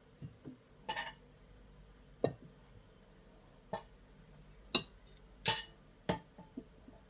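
Metal kitchen tongs clinking and knocking against a stainless steel saucepan, about six separate strikes spread a second or so apart. One strike near the end rings briefly.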